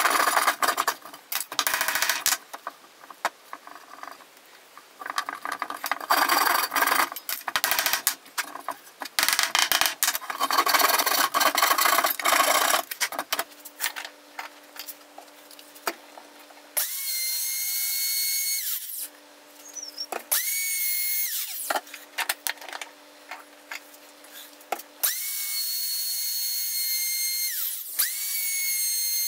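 A flush-cut hand saw rasps through a wooden dowel in quick, irregular strokes for the first dozen seconds. Then a compact router spins up to a high, steady whine while cutting wood, stops, runs again briefly, and starts once more for the last few seconds. A faint steady low hum sits underneath between the router runs.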